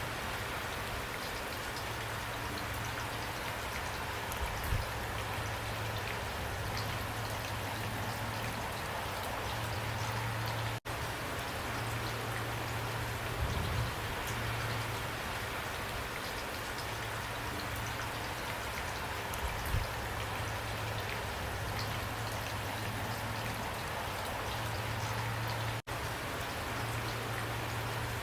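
Steady rain with scattered drop ticks and a low hum that comes and goes underneath. The sound cuts out for an instant twice.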